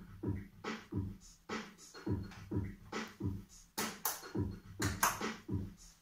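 Looped beatbox-style percussion pattern playing back through a low-pass filter, muffled and bass-heavy at first. About four seconds in, the filter opens under the foot pedal and the hits turn bright and crisp.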